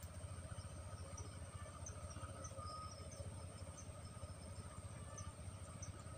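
Faint outdoor insect ambience: a steady high insect drone with scattered short, high chirps, over a low steady rumble.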